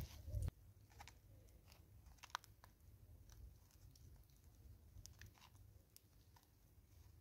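A vervet monkey picking food out of a cut-down plastic bottle and chewing it: faint, irregular crunches and clicks. A dull thump comes at the very start.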